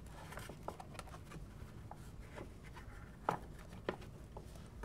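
Faint scraping and picking at the waterproof coating under the capacitors of an engine computer's circuit board, with scattered small clicks and two sharper clicks in the second half.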